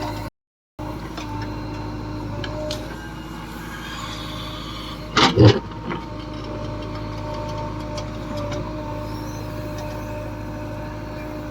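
Heavy diesel engine running steadily at a low, even speed, from a backhoe loader or tractor on the job. The sound drops out briefly just after the start, and a short, louder burst comes about five seconds in.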